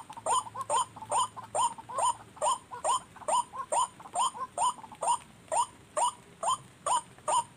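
White-breasted waterhen call played from a speaker as a lure: a monotonous series of short, hooked notes repeating evenly about twice a second.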